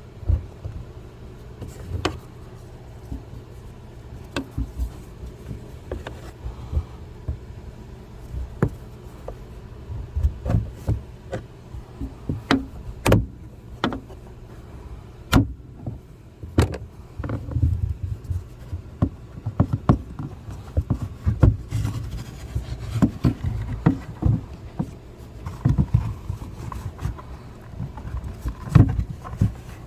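Scattered clicks, taps and knocks of hand work on the plastic trim and housing of a car's third brake light, with a trim tool or screwdriver, over a steady low hum. The knocks come irregularly, more often in the second half.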